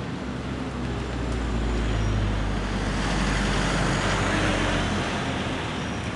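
A motor vehicle passes close by: a deep engine hum and tyre noise swell about a second in, stay loudest for a few seconds, then fade.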